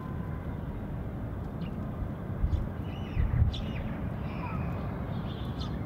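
Sparrows giving a few scattered chirps at a feeder over a steady low background rumble, with two brief low bumps about halfway through.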